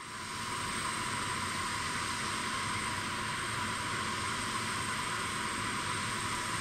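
Steady jet-turbine noise, mostly a high hiss with a thin constant whine on top, fading in over the first half-second and then holding level.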